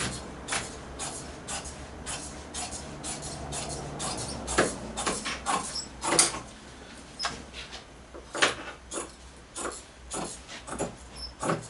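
Large fabric shears snipping through heavy upholstery fabric along a chalk line: a run of short, crisp snips, about two or three a second.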